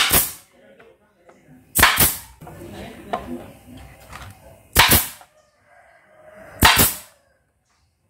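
TOKO pneumatic nailer firing into wooden board, run off a homemade fridge-compressor air compressor: four sharp cracks about two to three seconds apart, each a quick double report of the driver striking and the air blowing out.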